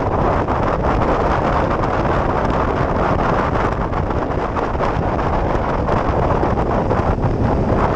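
Wind buffeting a helmet-mounted camera's microphone on a large adventure motorcycle at road speed, mixed with the bike's engine running steadily.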